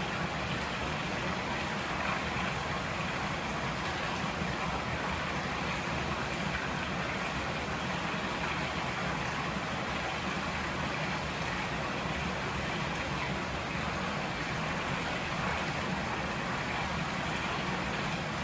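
Steady, unbroken rush of a flowing river.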